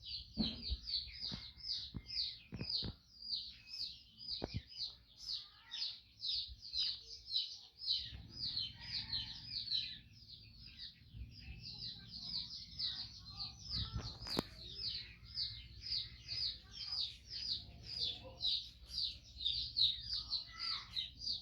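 A small bird chirping rapidly and without pause, about three short falling chirps a second. A few sharp knocks come in the first few seconds, and one more about halfway through.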